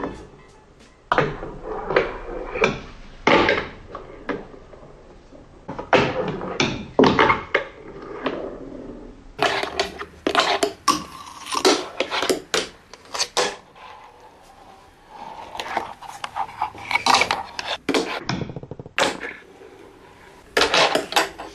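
Fingerboard being ridden over plywood ramps: clusters of sharp clacks and knocks as the tiny board pops, lands and its wheels roll on the wood, coming in bursts every second or two with short quiet gaps.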